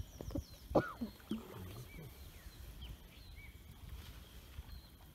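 Forest birds chirping and whistling, with one louder call about a second in that rises and falls, over a low background rumble.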